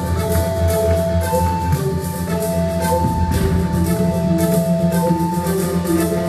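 Live electronic music: a repeating figure of two alternating held synth tones over a steady low bass drone, with faint light ticking percussion.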